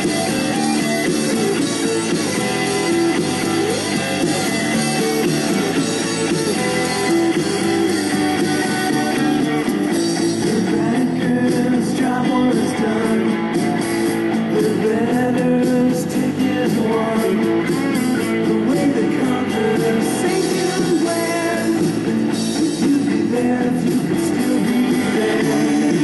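Studio recording of a rock and roll song playing steadily, with guitar and a singing voice.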